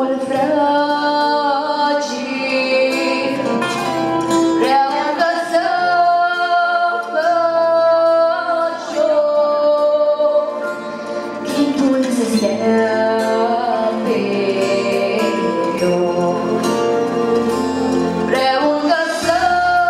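A girl singing a Romanian-language song into a microphone over instrumental accompaniment, with long held notes.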